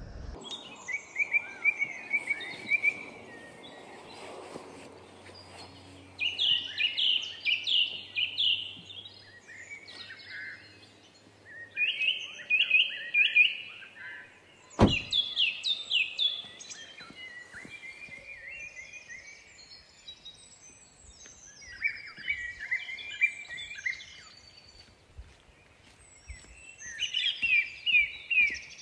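Songbirds of the dawn chorus singing in short, repeated trilled phrases, coming and going every few seconds. About fifteen seconds in, a car boot slams shut once with a single sharp thunk.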